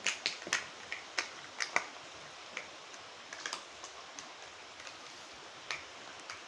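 Irregular sharp clicks and taps, several close together in the first two seconds and then sparser, over a steady hiss.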